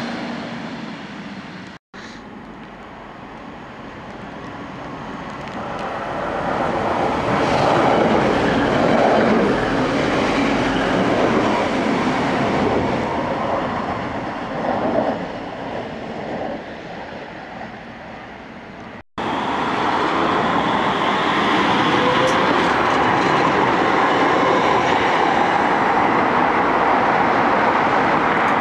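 A passenger train running in along a station platform, rumbling louder over several seconds and then easing off. After an abrupt cut about two-thirds of the way through, the steady running noise of a Manchester Metrolink tram.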